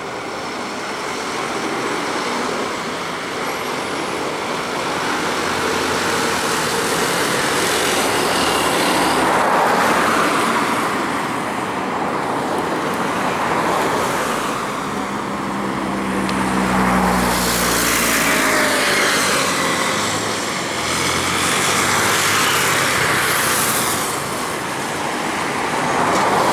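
Road traffic passing near the microphone, swelling and fading every few seconds, over the distant jet roar of an Airbus A319 climbing after takeoff. A heavier vehicle rumbles past about two-thirds of the way through.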